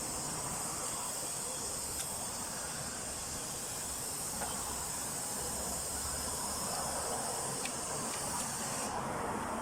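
A steady high-pitched hiss, like air or steam blowing, with a few faint clicks over it; it cuts off shortly before the end.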